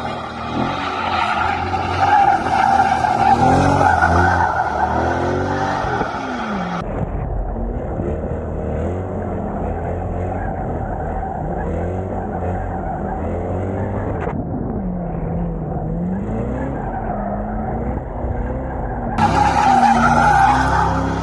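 C8 Corvette's V8 revving hard while the rear tires squeal and skid through burnouts and donuts, the engine pitch rising and falling. The tire squeal is loudest in the first third and again near the end; the middle stretch sounds duller and muffled.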